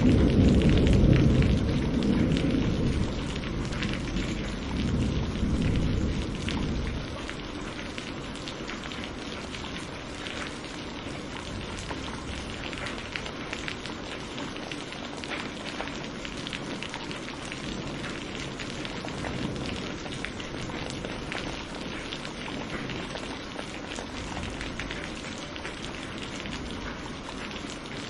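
Steady rain falling, with a low rumble of thunder dying away over the first several seconds.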